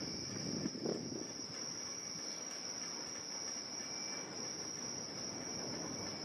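Insect chorus, a steady high-pitched trill, with a soft low swell about a second in.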